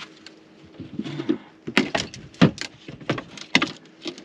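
A string of sharp knocks and clicks as an RV's exterior propane compartment hatch is worked open and a propane hose with its fittings is handled, the loudest knocks coming about halfway through.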